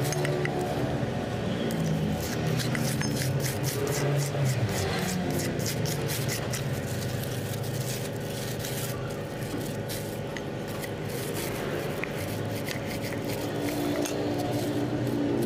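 Background music with held notes that change every few seconds, over light scraping and crackling from a knife working paste and plastic sheeting being handled.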